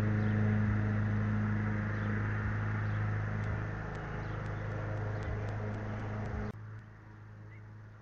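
A steady low mechanical hum with a rushing noise above it, which cuts off suddenly about six and a half seconds in, leaving only a faint hum; a few faint ticks come in the seconds before it stops.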